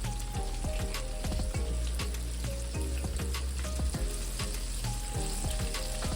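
Background music with a steady bass line, over a crackling, sizzle-like kitchen noise with many small clicks as chicken wings are seasoned and worked.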